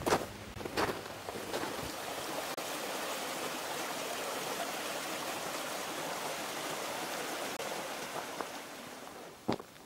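Small stream running steadily under a wooden footbridge, a continuous rush of water. A few footsteps crunch in snow in the first second or two.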